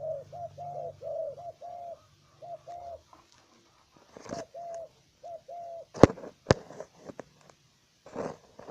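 Hybrid spotted dove cooing in repeated phrases of short, evenly pitched notes. Two sharp clicks sound about six seconds in, with a couple of brief rustling noises around them.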